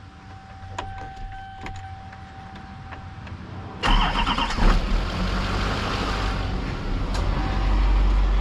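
2006 Chevrolet C4500's 6.6-litre Duramax V8 turbodiesel starting. After a few clicks and a steady high tone, the engine cranks and catches at once, a little under halfway through, then settles into an idle: it starts right up.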